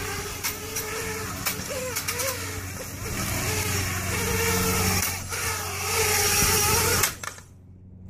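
Racing quadcopter's brushless motors running DAL 5040 props at high throttle while the drone sits pressed against a metal pole, a wavering whir with a hiss and sharp ticks of the prop blades striking the pole. The motors cut off suddenly about seven seconds in. The strikes are a deliberate durability test of the props.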